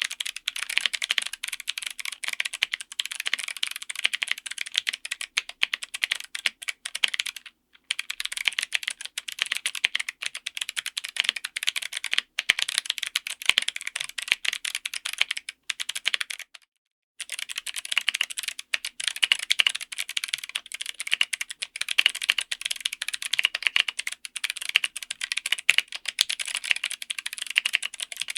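Fast, continuous typing on a mechanical keyboard, a rapid clatter of keycaps bottoming out on the switches. It stops briefly a few times and pauses for about a second about two-thirds of the way through.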